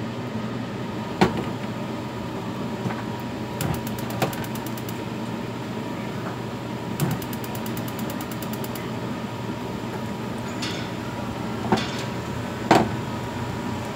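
Frying pans of pancakes being handled on a gas stove: scattered knocks of pan and spatula on metal, the loudest about a second in and near the end, over a steady hum and hiss. Two short runs of rapid fine ticking come in the middle.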